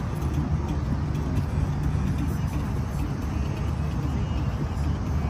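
Steady low rumble of road traffic passing, with no single sound standing out.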